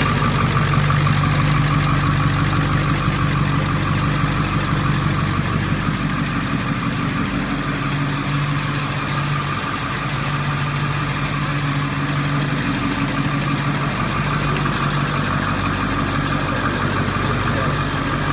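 Ford truck engine idling steadily with the A/C on max, a steady low hum with a thin higher tone over it. The A/C is running to draw the leftover refrigerant out of the service hoses after a recharge.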